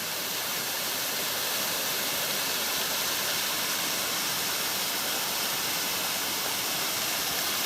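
Small cascade waterfall running over rocks into a pool: a steady rush of falling water, mostly high hiss.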